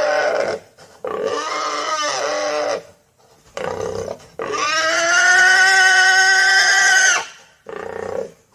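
Pigs squealing in a series of loud, pitched calls, the longest held for nearly three seconds about halfway through.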